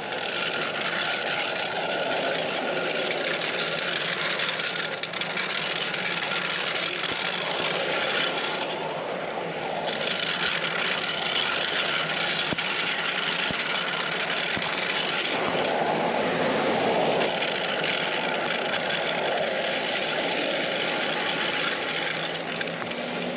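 Motorway traffic passing close by on a wet road: a continuous hiss of tyres on wet asphalt, swelling and easing as vehicles go past.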